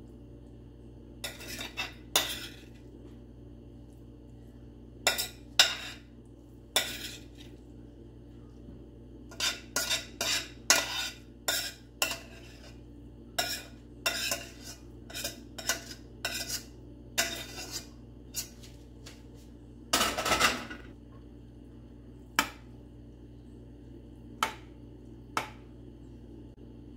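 Metal spoon clinking and scraping against a glass baking dish in irregular strokes while spreading a soft ground beef and vegetable filling, with a longer scrape about twenty seconds in.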